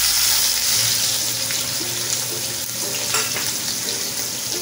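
Cut onion sizzling in hot oil with whole spices in a kadhai. The loud frying hiss is strongest as the onion goes in and eases slightly as it settles into a steady fry.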